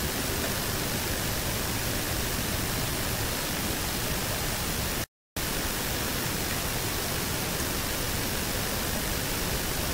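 Steady, even hiss of an amplified outdoor field recording played back, with no distinct call or knock. About five seconds in, the sound drops out to silence for a fraction of a second.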